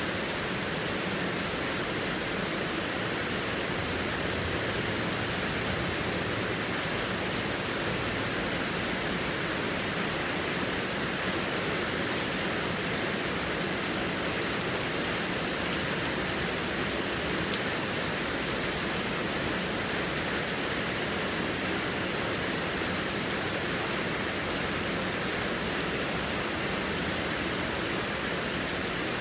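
Heavy rain falling in a steady, even downpour, with one brief click a little past halfway.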